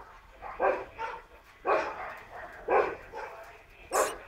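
A dog barking, four single barks about a second apart.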